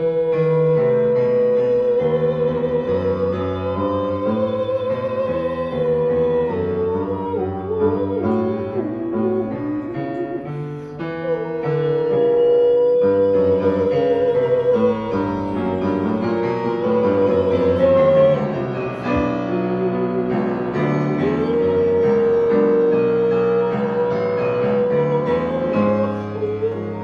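Piano accompaniment under a wordless vocal line: long notes held with vibrato, rising and falling between held pitches.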